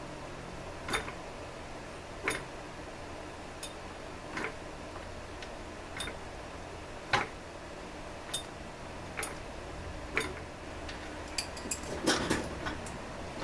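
Sharp, irregular ticks, roughly one every second or so with a small cluster near the end, as the flywheel of an Echo CS-400 chainsaw's ignition is turned over by hand to test for spark.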